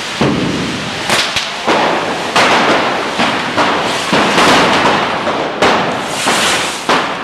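Cordà cane rockets (canyes) going off all around at close range, hissing and spitting as they skitter along the street. Sharp cracks come one after another, about two a second.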